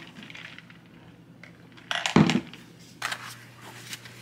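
Ice cubes clinking and cracking in a cup, in a short clatter about two seconds in and a smaller one about a second later.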